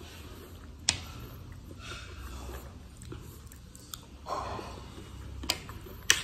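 A person chewing a mouthful of poha (flattened rice) with curd. A spoon clicks sharply against the plate three times: about a second in, and twice near the end.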